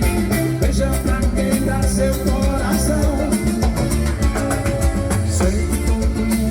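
Band music with a steady drum beat over a repeating bass line and sustained melodic notes, in a Latin dance style.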